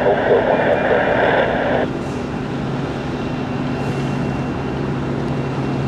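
Steady aircraft engine noise at the airfield, with a burst of hiss from the tower radio feed in the first two seconds and a low steady hum coming in about halfway.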